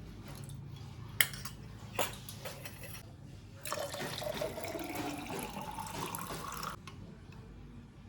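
Water running from a tap into a container for about three seconds, its pitch rising as the container fills, then cut off suddenly. Two sharp knocks come before it.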